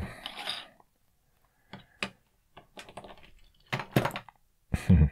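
Light plastic clicks and taps as an action figure and its clear plastic display stand are handled and set down on a wooden tabletop, a dozen or so irregular knocks, with a cluster near the end.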